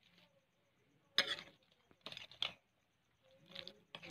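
Ladle stirring chicken curry in a steel kadai: a few short scrapes and knocks against the pan, separated by quiet gaps.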